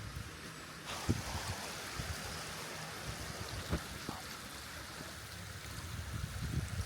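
Stream water rushing over rocks, a steady hiss that grows stronger about a second in. A few short knocks sound over it, one about a second in and one just before four seconds.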